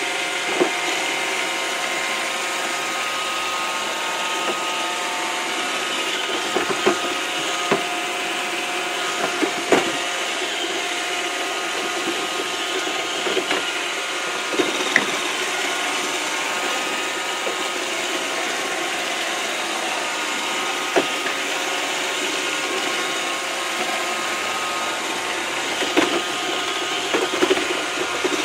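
iRobot Roomba robot vacuum running steadily, its motors and brushes whirring, with irregular sharp knocks as it bumps against the walls of the trap that holds it.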